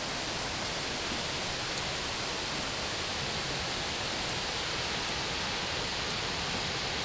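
Steady rushing of fast-flowing river water: an even hiss with no breaks.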